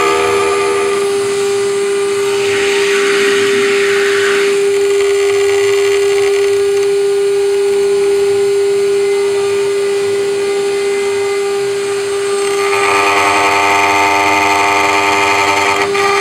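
Small CNC router's spindle running with a steady high whine as its engraving bit cuts into aluminium. A harsher cutting noise swells over it twice, about three seconds in and again near the end.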